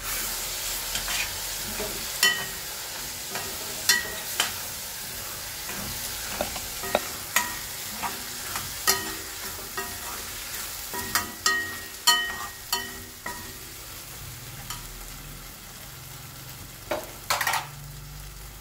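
A metal spoon stirs and scrapes a sizzling onion-and-tomato masala frying in oil in a stainless steel kadai, clinking sharply against the pan wall. The clinks come thick for the first two-thirds and then stop, leaving the steady sizzle, with two more scrapes near the end.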